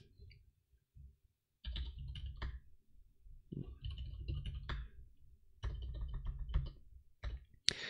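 Typing on a computer keyboard: after a second or so of near silence, keystrokes come in three or four short runs with brief pauses between them.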